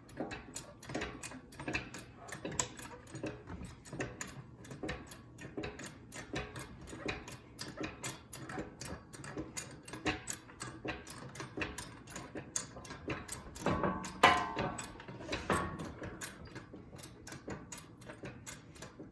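A jack being worked to raise a steel skid plate into place: fast, irregular metallic clicking and rattling, several clicks a second, with a few heavier knocks about two-thirds of the way through.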